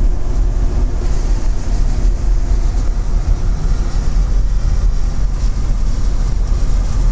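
Chevrolet Express 2500 van driving, a steady low rumble of road and running noise with no knocking from the rear differential, which has been converted from an automatic locker to an open diff.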